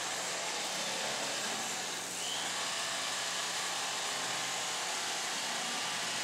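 Corded electric fillet knife running steadily, its small motor humming under a even hiss as it cuts yellow perch fillets.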